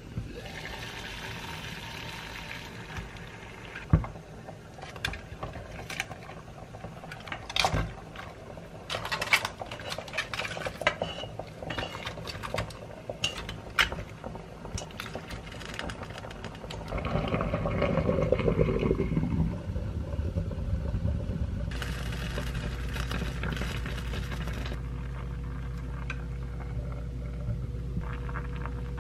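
A pot of water boiling under a glass lid, with clinks and knocks of the lid and of cabbage leaves being put into the pot. The second half is a steady boiling rumble and hiss.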